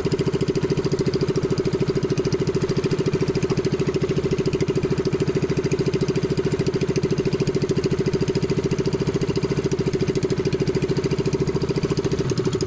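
Small engine of an outrigger fishing boat running steadily, with a fast, even firing rhythm that holds constant.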